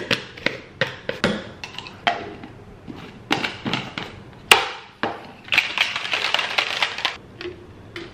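Handling a plastic shaker bottle: a string of separate plastic knocks and clicks, the loudest about four and a half seconds in. Then about a second and a half of fast rattling as the bottle is shaken and its wire whisk ball rattles inside, mixing the drink.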